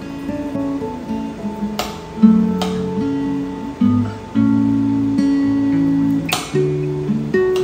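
Background music of acoustic guitar, strummed and plucked chords, with three brief sharp clicks over it.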